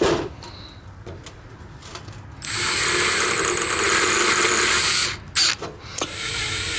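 Snap-on brushless cordless drill running with a small, sharp bit, drilling slowly into the brass plug that caps a carburetor's fuel mixture screw. It runs twice with a steady high whine: first for about two and a half seconds starting a couple of seconds in, then again near the end, with a couple of clicks in between.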